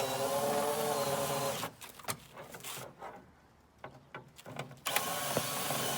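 Cordless screw gun whining as it backs out a small screw from the back of a TV, running for about a second and a half, then starting again about five seconds in, with a few light clicks between.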